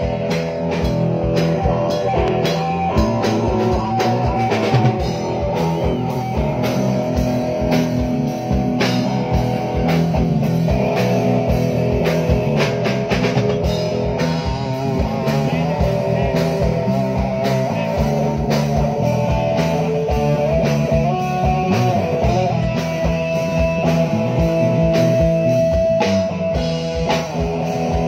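Live rock band at a soundcheck: amplified electric guitars playing over a drum kit, with a long held guitar note near the end.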